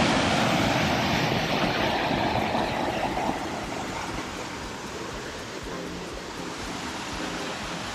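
Steady rushing of river water, loudest for the first few seconds and then easing to a lower, even level.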